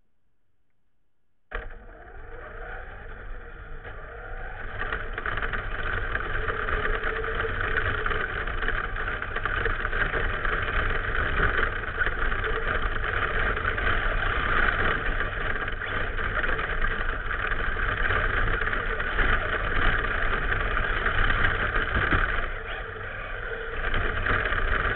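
Traxxas Slash RC truck driving, heard from its onboard camera: a steady hash of motor, drivetrain and tyres rolling over gravel and grass. It starts abruptly about a second and a half in after near silence and grows louder over the next few seconds.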